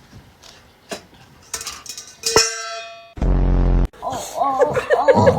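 A single metallic ding about two seconds in that rings out for about a second, followed about a second later by a short, loud, steady buzz.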